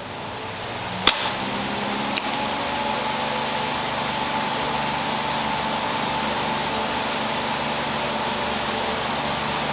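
Electric fan coming up to speed and then running steadily, a noisy rush of air with a steady hum. Two sharp clicks come about a second and two seconds in.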